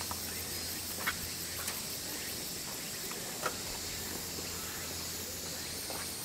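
Cicadas singing steadily, a constant high-pitched hiss, with a few faint clicks about a second in and again a little past the middle.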